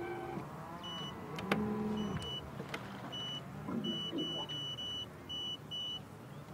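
A low electric motor hum, like a bow-mounted electric trolling motor running, with a series of short, high electronic beeps from about one second in that come closer together in the second half. A single sharp knock sounds about one and a half seconds in.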